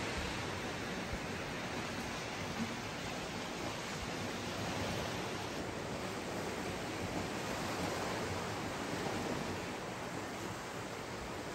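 Small ocean waves washing over a flat rock reef shelf at the shoreline, a steady even hiss of surf.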